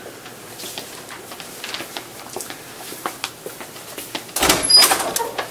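Soft footsteps and shuffling, then a louder thud and clatter about four and a half seconds in as a classroom door is pushed open.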